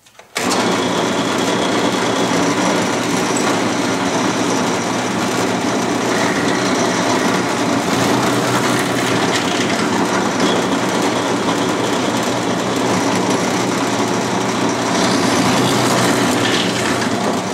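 Drill press motor switched on about a third of a second in, running steadily with a constant low hum while a bit drills holes through pine boards, then starting to wind down at the very end.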